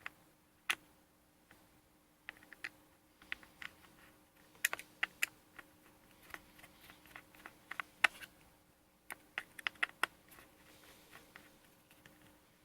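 Irregular small clicks and taps from a tri-wing screwdriver working out the battery screws of an opened MacBook Pro, over a faint steady hum.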